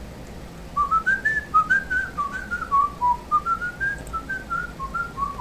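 A man whistling a short, meandering tune of quick separate notes, starting about a second in, rising at first and then wandering down and up again.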